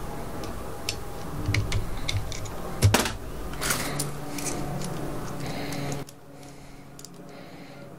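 Small metal clicks and scrapes as a screwdriver pries the circlip off the back of a pin-tumbler lock cylinder, with one sharp click about three seconds in. The clicking dies down after about six seconds as the cylinder is handled.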